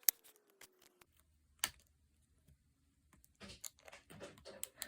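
Plastic packaging being worked open by hand: a few scattered sharp clicks, then a denser run of crackling and clicking over the last second and a half.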